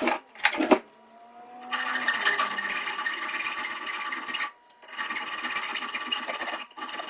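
Small vacuum cleaner running in three stretches, starting and stopping abruptly, sucking up metal chips from a freshly cut fork steer tube; a few sharp clicks come just before.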